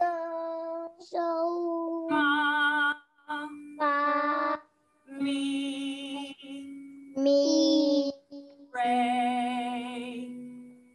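A woman's and a child's voices singing solfège syllables as a row of held notes with short gaps between them, stepping down in pitch, several with vibrato, heard over an online video call.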